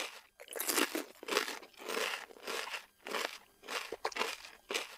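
Ruffles ridged potato chips being crunched and chewed, a run of sharp crunches about twice a second.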